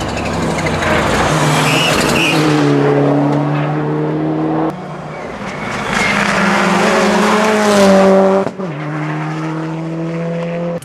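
Rally cars at full throttle flat out on a closed tarmac road, each engine note rising as it revs hard. The sound breaks off sharply twice, once about halfway through and once near the end, as one car gives way to the next.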